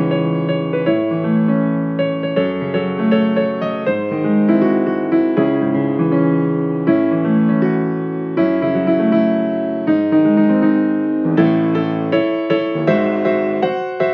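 Background piano music: a melody played over held chords.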